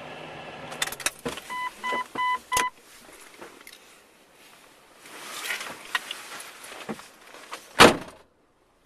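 A car's engine idles and cuts off about a second in, followed by clicks and the car's electronic warning chime beeping four times. Rustling follows, then a loud thump near the end.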